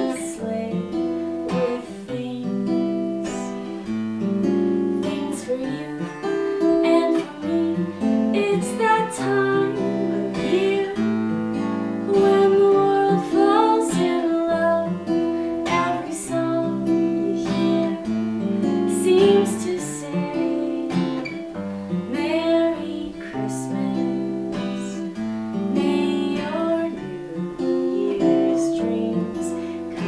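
A steel-string acoustic guitar played with a woman singing the melody over it, in waltz time.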